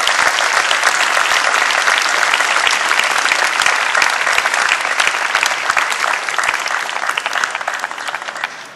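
Audience applauding, a crowd of hands clapping steadily at the end of a speech, dying away near the end.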